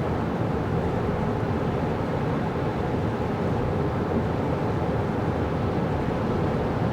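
Steady road and tyre noise from a 2024 Kia Carnival Hybrid minivan driving on snowy roads: an even, muffled rumble that holds level, with no distinct engine note.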